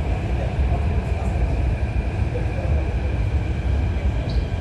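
CRRC Qingdao Sifang/Kawasaki T251 metro train moving along the platform behind the platform screen doors: a steady low rumble with a faint steady whine.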